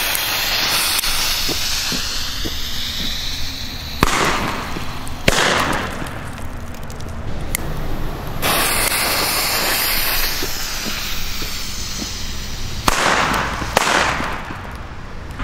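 Weco Donnerschlag firecrackers going off: hissing, then sharp bangs that echo, two a little over a second apart about four seconds in and two more near the end.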